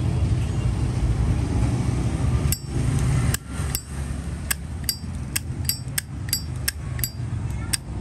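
Zippo lighter with a titanium-coated case, its lid flicked open and snapped shut over and over: a run of sharp metallic clicks, each with a bright ping. The clicks start a few seconds in and come two to three a second.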